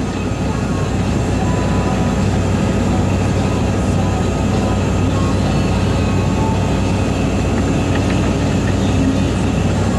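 Kobelco SK375 Mark IV log loader's diesel engine running steadily with a constant low hum as the machine swings its boom and grapple to move logs (hoe chucking).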